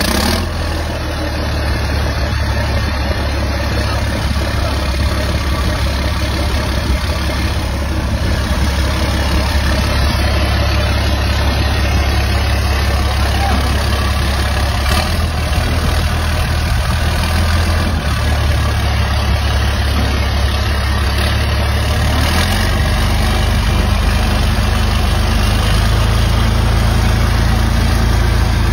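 Used truck diesel engine idling steadily on a test run, its exhaust open with no muffler. The low engine note steps up slightly near the end.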